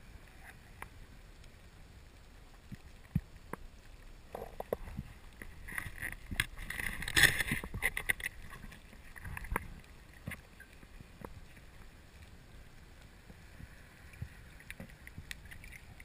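Underwater sound through a diver's camera: a faint steady water hiss with scattered clicks and knocks. About six to eight seconds in comes a louder stretch of dense clicking and rushing noise.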